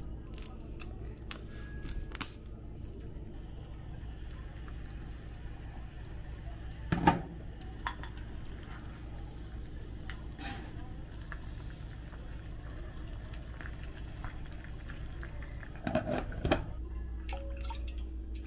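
Pots and utensils being handled at a gas stove and sink: scattered clicks and knocks of metal and glass over a steady low hum, with the loudest knock about seven seconds in and a short clatter near the end.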